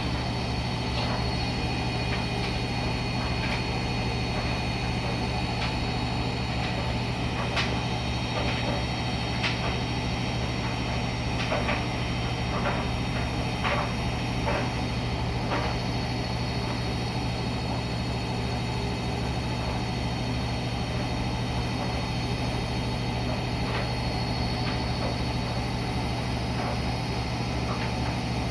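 Siemens iQ300 front-loading washing machine running mid-cycle with a steady hum, and a scattering of light clicks and ticks between about eight and sixteen seconds in.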